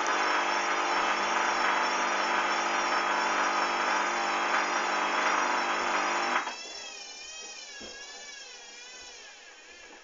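Hoover Dynamic washing machine on its first intermediate spin: the drum spins fast with a loud, steady rush and a high, wavering motor whine. About six seconds in the motor cuts out and the drum coasts down, its whine slowly falling in pitch and fading; the spin is very unbalanced, with a suds lock.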